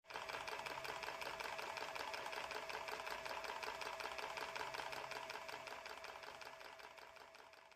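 A fast, even mechanical clatter, many beats a second, fading out near the end.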